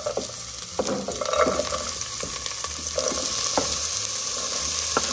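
Diced onion, celery and tomato sizzling steadily as they drop into hot oil in a pot, the start of a sofrito. A handful of short scrapes and knocks sound as a knife pushes the vegetables off a wooden cutting board.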